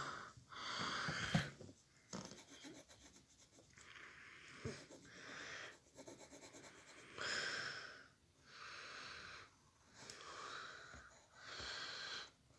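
A person breathing faintly close to the microphone: a series of slow breaths, each about a second long, with short pauses between them.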